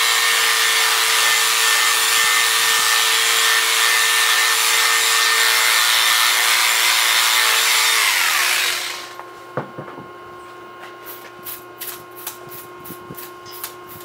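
Electric livestock clippers running steadily while clipping hair off a steer's rump. They are switched off about eight and a half seconds in, and the motor winds down; after that come only a few light clicks.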